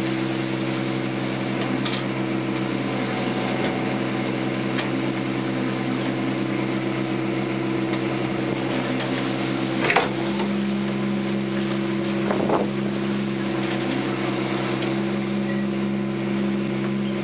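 Fishing trawler's engine and deck machinery running with a steady multi-tone hum while the full trawl net hangs over the hopper. About ten seconds in, a short rising squeal, after which a new steady tone joins the hum, and a second brief sound follows a couple of seconds later.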